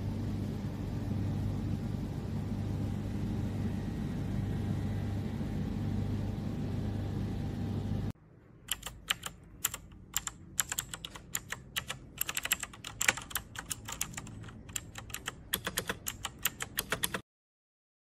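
A steady low hum with hiss runs for about eight seconds and then cuts off. It is followed by fingers typing on a mechanical keyboard: a fast, uneven run of sharp key clicks.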